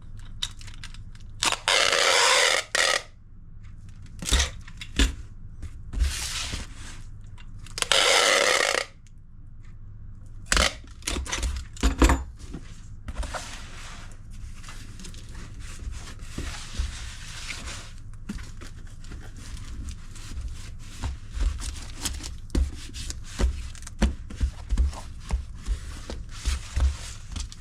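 Parcel-packing handling noise: two long tearing rasps a few seconds apart, then many small knocks, clicks and rustles as packing material and a cardboard box are worked.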